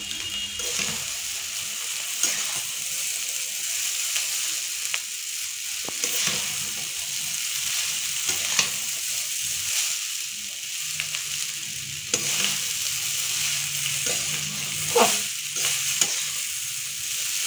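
Chow mein noodles stir-frying in a steel karahi: a steady sizzle of hot oil, with the metal spatula scraping and knocking against the pan many times as the noodles are tossed, loudest about 15 seconds in.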